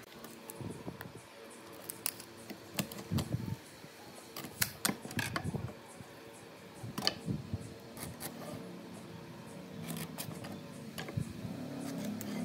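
Scattered light knocks, taps and clicks as wooden boards, a pencil and a metal carpenter's square are handled and set down on a wooden workbench, over a faint steady hum.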